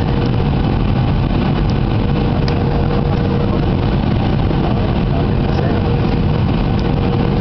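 Steady cabin noise of a jet airliner descending to land: engine and rushing airflow heard through the cabin wall, with a faint steady hum and a couple of tiny clicks.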